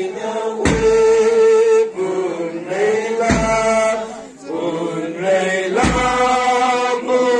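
A group of voices chanting a song in unison in long held notes, with a deep thump about every two and a half seconds.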